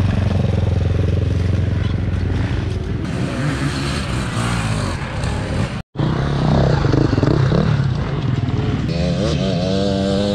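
Enduro dirt-bike engines at racing speed, close by. The sound cuts out for an instant about six seconds in, after which one bike revs up and down repeatedly through a corner, its pitch rising and falling.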